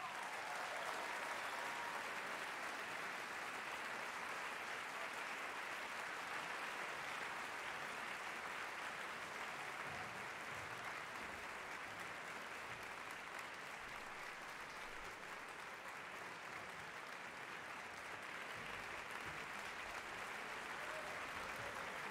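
Concert-hall audience applauding steadily, easing a little in the middle and picking up again near the end.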